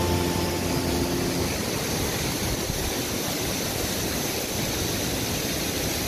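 Rushing water of a waterfall and river, a steady even hiss. Background music fades out about a second and a half in.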